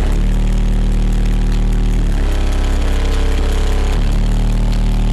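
Car audio system played at high volume, its subwoofers carrying heavy sustained bass notes that change every second or two.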